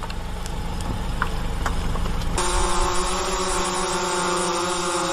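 Low engine and road rumble inside a police vehicle. About two and a half seconds in it cuts off abruptly, replaced by a steady whine of several held tones from an aircraft.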